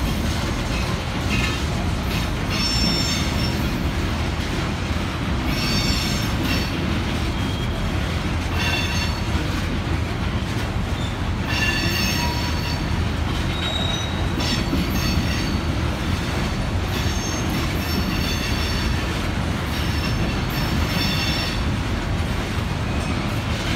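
Freight train of open-top hopper cars rolling past, a steady low rumble of wheels on rail. High-pitched wheel squeals come and go every few seconds.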